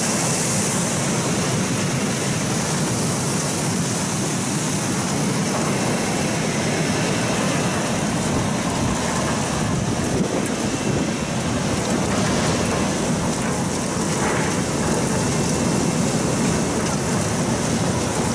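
French fry production line running: a steady rush of churning and spraying water in the potato washing and blanching tanks, mixed with machine noise.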